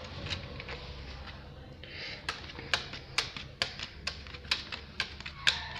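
Neapolitan playing cards dealt one at a time onto a stone surface. Soft rustling of the pack is followed, about two seconds in, by a steady run of sharp card slaps at about two a second.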